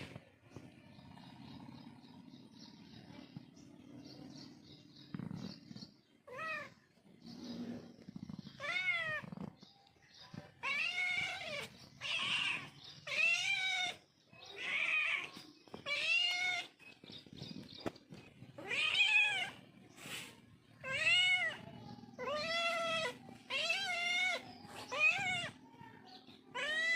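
Domestic cat meowing over and over. About six seconds in it begins a string of some fifteen rising-and-falling meows, roughly one a second.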